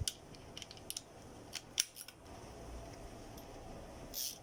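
A handful of sharp, irregular metallic clicks, three of them close together about two seconds in, from a torque wrench and sockets being handled and set to 16 foot-pounds.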